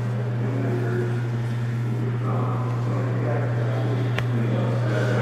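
A steady low hum, with faint indistinct voices in the background and one sharp click about four seconds in.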